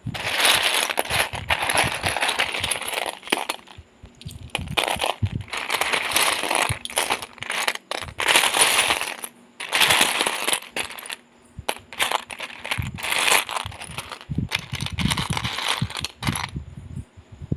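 Loose plastic Lego pieces rattling and clattering in repeated bursts of a few seconds each, made up of many small clicks.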